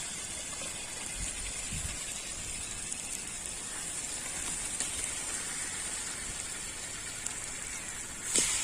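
Chicken pieces frying with onion, tomato and spice paste in oil, a steady sizzle with scattered small crackles. Near the end comes one louder, sharp knock.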